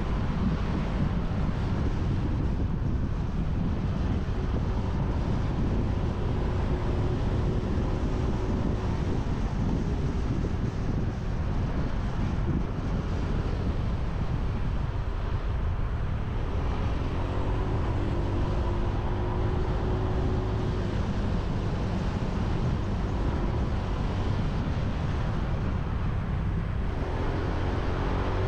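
Motorbike engine running on the move, with road and tyre noise and wind buffeting the microphone. The engine hum comes through more clearly about two-thirds in and again near the end.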